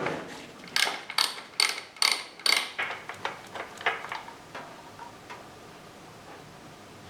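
Ratchet and 3/4 inch socket undoing a motorcycle gearbox drain plug: a run of about five sharp, ringing metallic clicks about a second in, then fainter clicks that die away.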